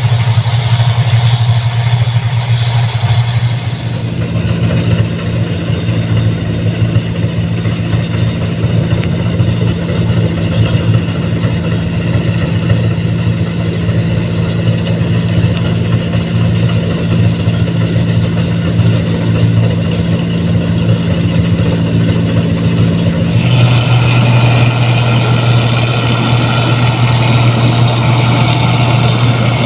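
Rice combine harvester engine running steadily with a constant low hum, its sound shifting abruptly in character about four seconds in and again about three-quarters of the way through.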